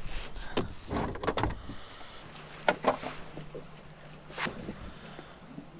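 Knocks and clunks of gear being handled on the kayak, then a steady low electric-motor hum lasting about three seconds from the Sniper Marine Sniper Pole, the kayak's electric shallow-water anchor, being raised to leave the spot.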